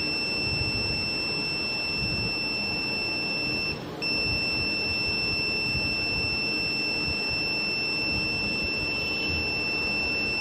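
Obturation pen's gutta-percha cutter giving a steady high-pitched beep while its tip heats to sear off a gutta-percha point. There is one short break about four seconds in.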